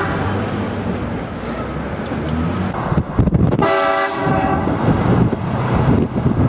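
Prank train horn blasting once a little past halfway through, a short, loud chord of several tones over steady low background noise.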